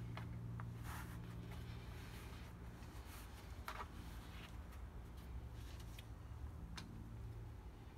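Faint, brief rustles and light clicks of hands handling things, over a steady low hum.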